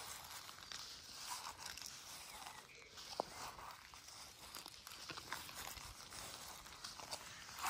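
Faint, irregular rustling and crunching of meadow grass being walked through, with one sharper tick about three seconds in.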